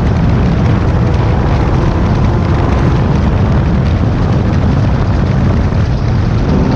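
Class 10 off-road race car running at speed: a steady engine drone under a loud, continuous rumble of wind and terrain noise.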